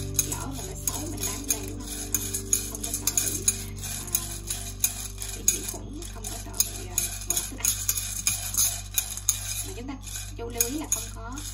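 Pumpkin seeds being stirred and tossed in a dry stainless steel pan with a metal utensil while they roast: a rapid, irregular run of light clicks and rattles of seeds and metal on metal, over a steady low hum.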